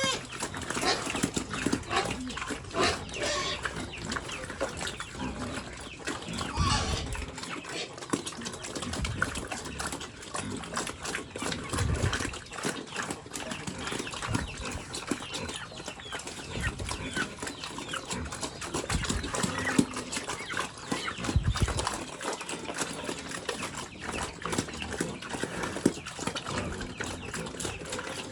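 Pigs grunting at feed, with a steady stream of irregular clicks and smacks from chewing and snuffling at the food.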